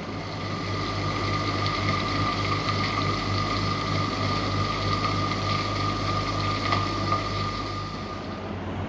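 A machine running steadily: a low hum under a high, even whine, with a few clicks near the end.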